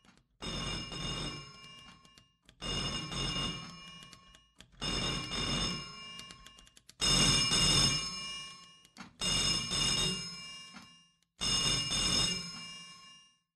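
Telephone bell ringing six times, about two seconds apart. Each ring starts sharply and dies away.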